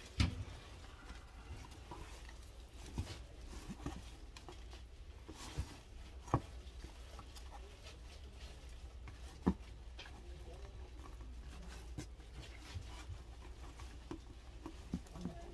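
Sparse soft taps and rustling of flower stems and bundles being handled on a cardboard-covered worktable as a flower garland is bound by hand, over a low steady hum.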